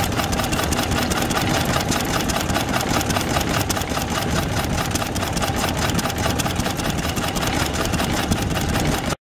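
Small vintage Lorenz stationary engine running steadily, with a quick, even beat of firing strokes.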